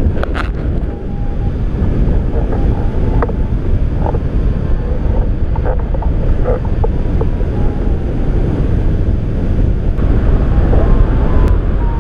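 Airflow buffeting the camera microphone on a hang glider in flight: a loud, steady wind rush with its weight at the low end. A few faint short tones are heard through it.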